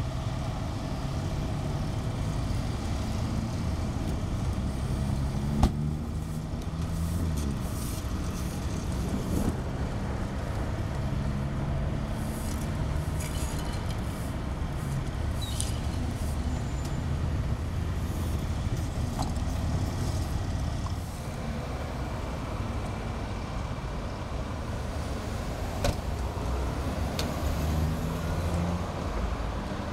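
Idling fire-engine diesel engine and passing road traffic, a steady low engine hum with traffic noise over it. There is a single sharp knock about five and a half seconds in, and a fainter one near the end.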